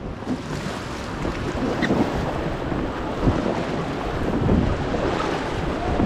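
Rushing river water around an inflatable raft entering a rapid, with wind buffeting the microphone. It is a steady noisy rush with low rumble that builds a little over the first couple of seconds.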